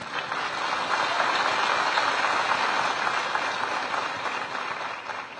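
A large indoor audience applauding. It swells up quickly, holds for a few seconds and fades away near the end.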